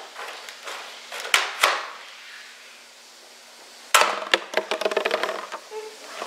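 Toy Nerf foam-dart blaster snapping and clicking as it is worked and fired: two sharp snaps with a short puff of air, then about four seconds in a loud snap followed by a quick clatter of hard plastic clicks and knocks.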